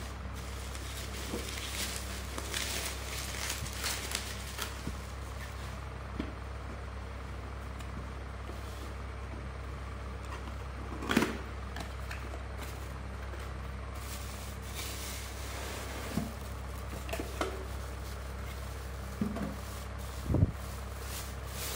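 Packaging being handled: bubble wrap and plastic rustling and crinkling, with a few sharp knocks as boxes and the cooler are set down on a tile floor, the loudest about halfway through and another near the end. A steady low hum runs underneath.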